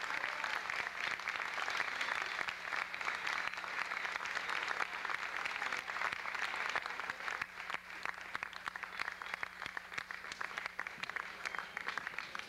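Theatre audience applauding a curtain call: dense clapping from many hands, thinning out a little in the second half.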